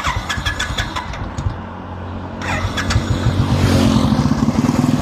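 A motorcycle or scooter passing on the road, growing loud from about three seconds in, over a steady low hum of traffic.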